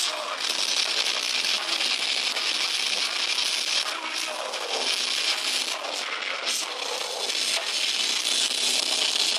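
Live metal band playing, with distorted electric guitars and drums in a dense, harsh, crackly wash that has almost no deep bass.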